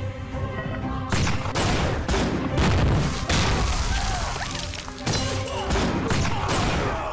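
A volley of cannon fire: a rapid series of booming blasts, about half a second to a second apart.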